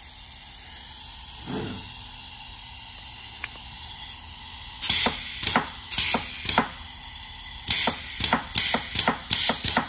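Compressed air hissing steadily from the range modulator valve on an Eaton Fuller ten-speed transmission top plate. About five seconds in comes a quick series of loud, sharp air blasts, about a dozen, as the range shifts back and forth. The constant leak is air bypassing the range piston in a rust-gouged top plate, which makes even a brand new modulator sound bad.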